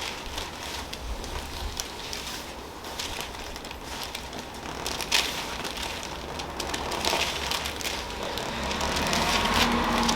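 Rustling and crackling of body and clothing moving on a treatment table during hands-on chiropractic work, with one sharp click about five seconds in.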